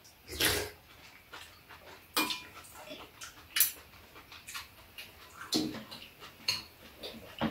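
Eating at a table: a few scattered clinks of metal spoons and chopsticks against bowls, mixed with slurping and chewing.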